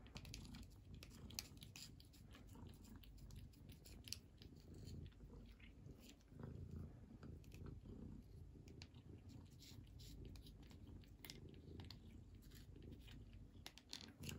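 Faint, irregular wet licking and smacking of a Munchkin cat lapping a paste treat off a plastic spoon.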